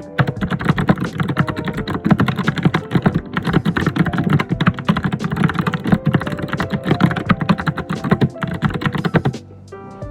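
Fast, continuous typing on a computer keyboard, a dense run of loud keystrokes that stops suddenly about nine seconds in. Soft background music with sustained notes plays underneath.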